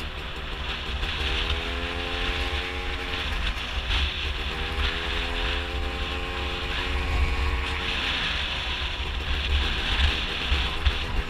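Gilera Runner scooter's two-stroke engine, fitted with a Malossi 172 cc big-bore kit, running under way; its pitch climbs, drops back twice (about four seconds in and again near eight seconds), then climbs again. Heavy wind buffeting on the microphone.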